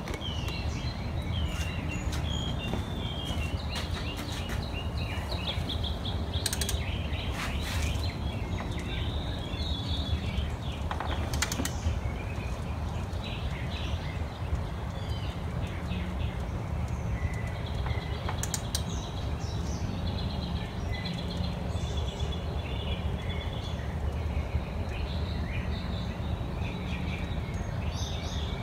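Small birds chirping and twittering repeatedly over a steady low background rumble, with a few sharp clicks scattered through.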